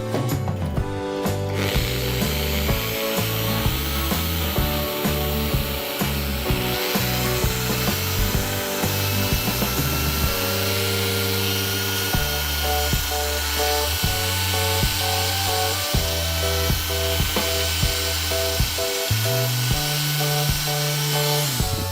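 Background music with stepped bass notes, with a small motor whirring steadily over it from about two seconds in, its whine rising slightly.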